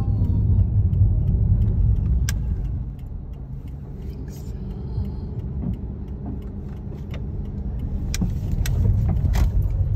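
Low rumble of a car's engine and tyres heard from inside the cabin while driving slowly. It eases off about three seconds in and builds again near the end, with a few sharp clicks.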